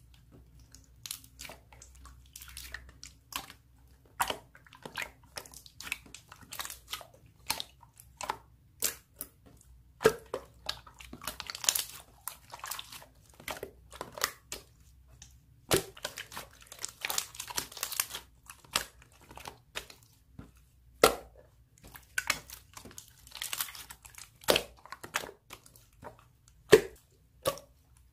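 Slime being squeezed and pressed by hand, giving an irregular run of crackles, clicks and wet pops, with a few louder pops.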